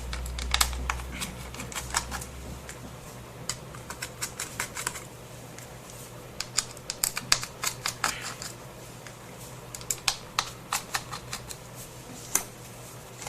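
Irregular sharp clicks and light taps of a small screwdriver and metal screws as the four screws holding a laptop's SATA hard drive in place are undone.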